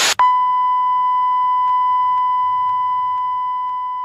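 TV test-card tone: a steady, loud, high-pitched beep of the kind played with colour bars, fading slowly, coming in just after a short burst of TV static hiss cuts off.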